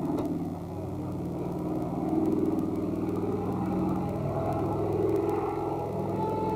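Engine of a propeller biplane flying overhead, a steady drone whose pitch wavers slightly.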